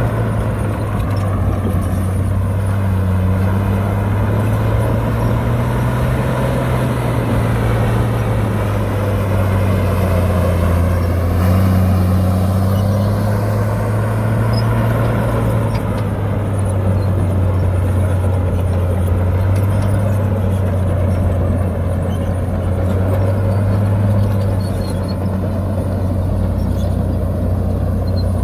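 Heavy diesel engine of earthmoving machinery running steadily, its low hum rising and falling slightly in pitch.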